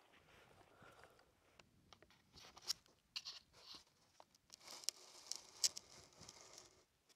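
Nylon jacket fabric rustling and crinkling in irregular bursts, with scattered sharp crackles.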